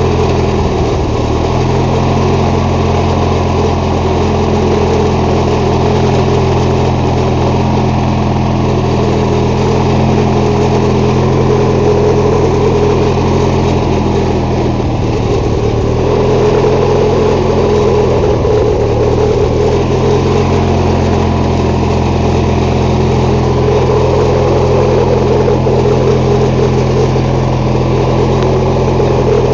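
MTD lawn tractor engine running steadily. Its speed dips briefly a few times, about a second in and again around 15 and 19 seconds in.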